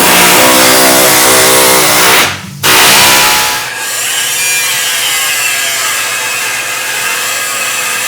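A power tool running hard, with a whining pitch. It stops briefly a little over two seconds in, starts again loudly, then runs on a little quieter with its pitch wavering as it is worked against the material.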